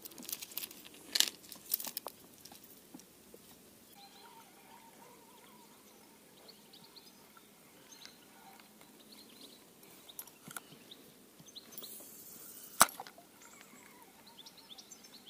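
A spinning rod is cast: a short hiss of line running off the reel, ending in a sharp click late on. Before it come small tackle clicks and faint bird chirps.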